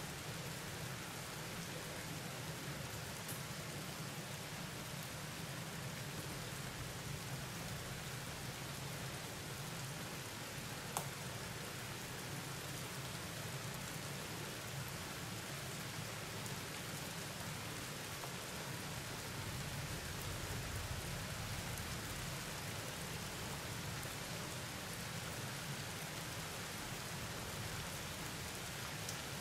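Steady rain falling during a thunderstorm, an even hiss with a low rumbling undertone, and a single sharp tick about eleven seconds in.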